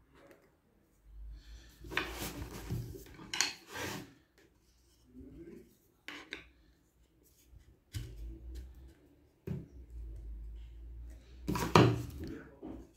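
Bamboo laptop-stand pieces knocking and rubbing together as they are handled and fitted, with a bamboo rod pushed through a hole in a side piece. It comes as scattered wooden clacks with scraping in between, the loudest clack near the end.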